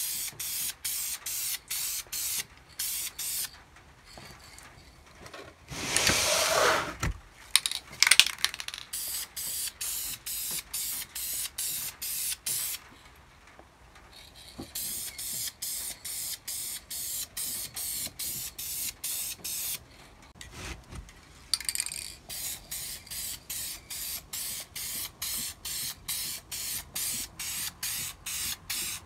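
Aerosol spray paint can spraying a car engine valve cover in quick short bursts of hiss, about three to four a second, pausing briefly a few times. A louder rushing noise and a few sharp knocks come about six to eight seconds in.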